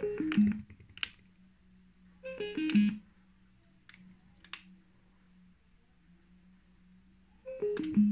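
Sunix BTS39 wireless speakers sounding a short descending four-note electronic chime three times: at the start, a little over two seconds in, and near the end. Between the chimes come a few sharp clicks of their top buttons being pressed.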